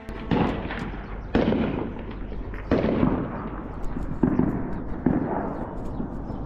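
Heavy weapons fire in a city: about six loud booms, roughly a second apart, each dying away with an echo.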